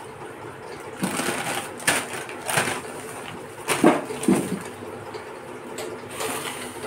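Thin plastic bags and a plastic food packet crinkling and rustling as they are handled, in irregular bursts, the loudest a little under four seconds in.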